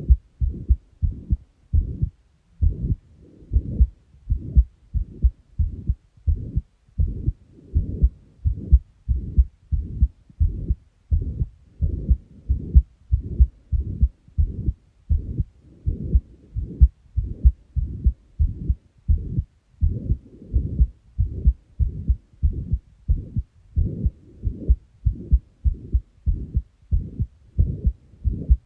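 Heartbeat with a heart murmur: low, muffled beats repeating in a steady, even rhythm, the murmur adding an abnormal rushing noise around the beats.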